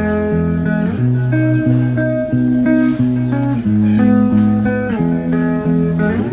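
Background music: guitar playing over a steady bass line, with the notes changing in regular steps.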